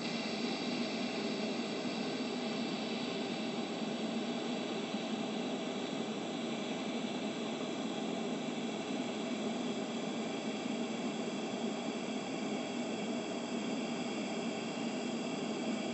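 TIG welding arc running steadily on heavy-wall 4130 chrome-moly steel, a constant hiss, as the second pass is laid on a fillet weld.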